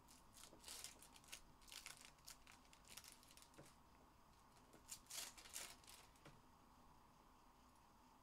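Faint rustling and crinkling as packs of trading cards are handled and opened, in short scattered bursts, busiest in the first few seconds and again around five seconds in.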